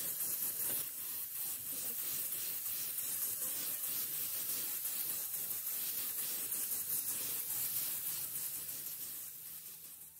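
Spray paint hissing steadily from the nozzle as a motorcycle's front fork leg is coated black, stopping right at the end.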